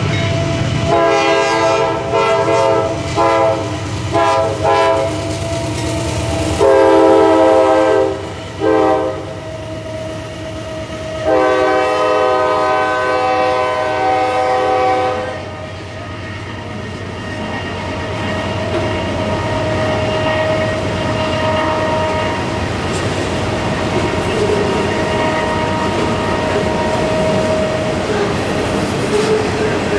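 Horn of a CSX C40-8W diesel locomotive leading an autorack freight: a run of blasts ending long, short, long, with the locomotives running underneath. Then the steady rumble and wheel clatter of autorack cars rolling past.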